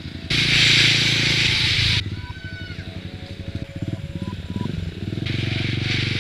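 Motorcycle engine running at a steady low pulse while the bike rides along. A loud rushing hiss comes in about half a second in, cuts off sharply near two seconds, and returns near the end.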